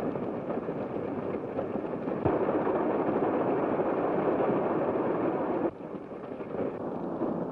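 Propeller airplane engines running on the ground, a steady noise that grows louder about two seconds in and drops abruptly near the end.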